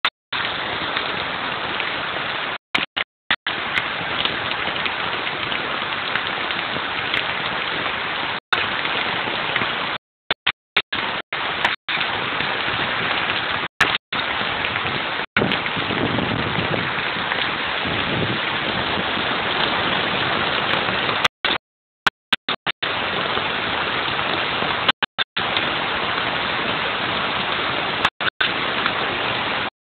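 Heavy storm rain pouring steadily, a dense even hiss. The sound cuts out to silence for split seconds many times, dropouts in the recording.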